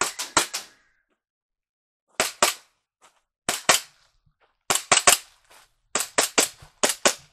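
Airsoft pistol firing: sharp popping shots in quick bursts of two to four, with about a second's pause between bursts.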